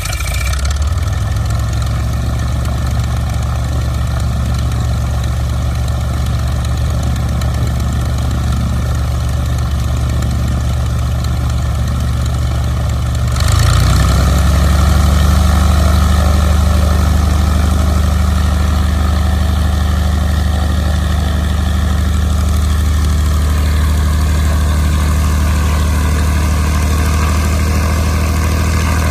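Piper PA-25-235 Pawnee's Lycoming O-540 six-cylinder engine and propeller running steadily at idle, then stepping up to a higher, louder steady speed about halfway through.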